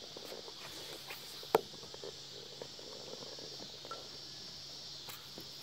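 Steady, high-pitched insect chorus, with one sharp click about a second and a half in.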